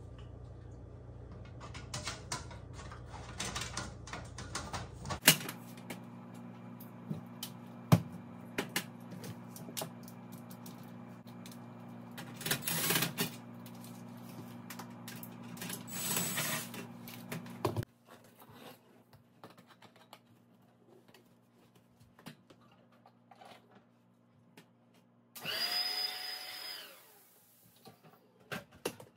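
Clicks and knocks of a metal oven trim panel being handled and fitted, with a cordless drill-driver running briefly twice as screws are driven in. A steady low hum stops about two-thirds of the way through, and a short whine falling in pitch comes near the end.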